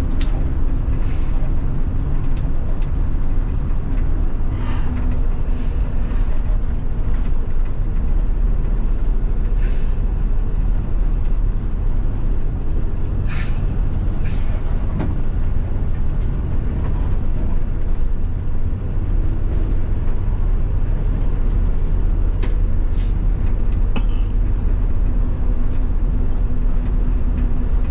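Tour bus running along the road, its engine a steady low rumble, with several brief hisses breaking in now and then.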